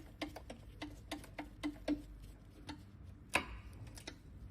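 Light, quick metallic clicks of hand tools and screw hardware being worked on the inverter chassis, about four a second at first and then sparser. One louder clack comes a little over three seconds in.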